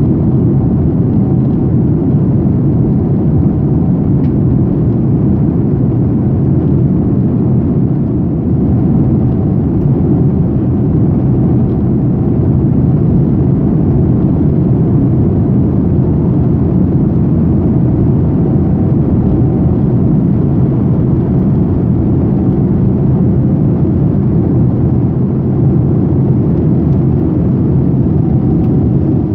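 Boeing 787's GEnx turbofan engines and airframe heard from inside the cabin over the wing as the airliner rolls along the ground: a steady, loud low rumble with a faint hum that does not change.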